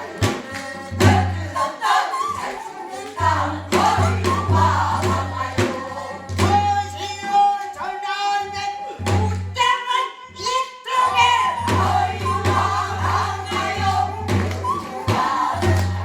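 Namdo sori, Korean southern folk singing: voices sing with a wide vibrato on held notes, over a drum beating low, repeated strokes.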